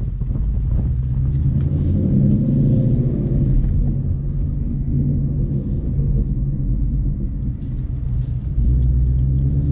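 A 2019 Ford Mustang GT's 5.0-litre V8 running through a Corsa Xtreme active cat-back exhaust at low speed, a deep steady rumble. The engine note rises and falls once about two seconds in, and the low rumble steps up again near the end.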